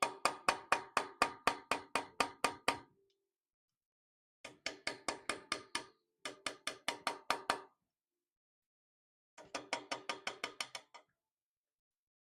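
A small hammer tapping a chisel into wrought iron in quick, even runs of light strikes, about five a second, with a short metallic ring on each. There are four runs with short pauses between them: this is undercutting dovetail grooves for copper inlay.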